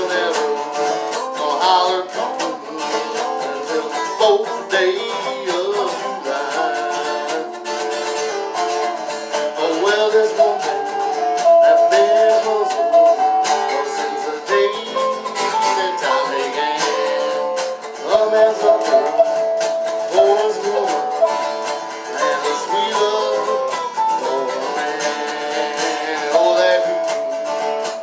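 Acoustic folk music on plucked string instruments: a steady strummed guitar rhythm with a melody line played over it, an instrumental break between sung verses.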